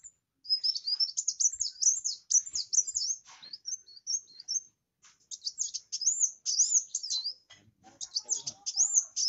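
Kolibri wulung (kowul), a sunbird, singing energetically: rapid, very high twittering phrases of quick up-and-down notes, with a brief pause around halfway.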